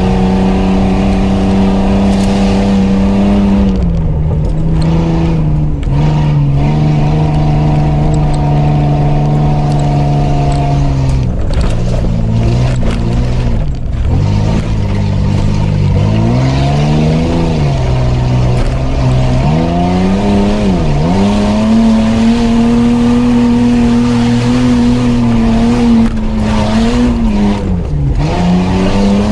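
Off-road 4x4's engine driving hard along a rough dirt track, heard from inside the cab. Its pitch rises and falls with throttle and gear changes, with several sharp dips in the second half, over a steady rumble of tyre and road noise.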